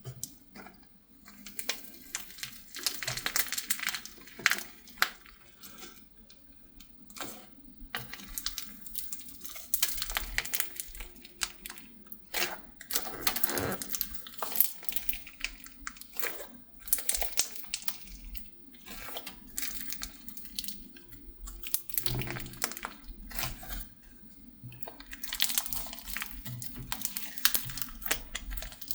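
Hands squishing and stretching slime with clay mixed in, giving irregular sticky crackles and small pops in clusters with brief pauses.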